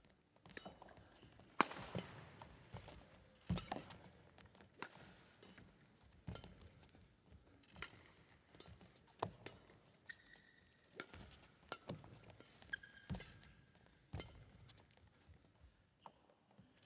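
Badminton rally: racket strikes on the shuttlecock at about one a second, mixed with players' footsteps and brief shoe squeaks on the court floor, echoing in the hall.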